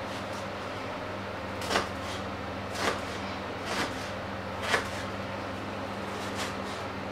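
Kitchen knife cutting through a peeled onion on a wooden chopping board: four separate cuts, each ending in a short knock of the blade on the board. A steady low hum runs underneath.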